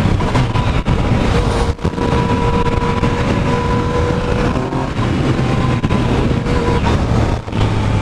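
Yamaha FZ-09 motorcycle's three-cylinder engine running under way on the road, heard with road and wind rush at a steady level; the sound dips briefly twice, about two seconds in and again near the end.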